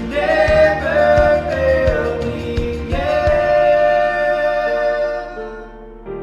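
Worship song: voices singing long held notes over keyboard accompaniment, fading away after about five seconds to a sustained keyboard chord.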